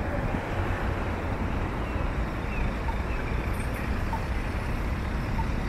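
Steady road traffic noise of cars passing on a wide multi-lane road.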